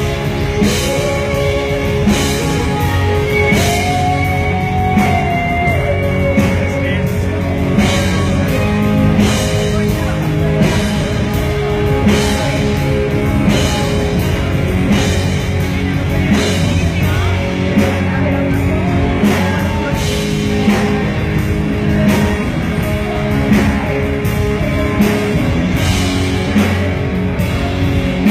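Rock band playing: a drum kit keeping a steady beat under electric guitar, with a voice singing.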